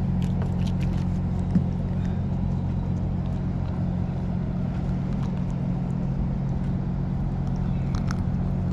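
Boat engine idling, a steady low hum. Faint clicks and one sharp tap about a second and a half in, from handling the fish and hook.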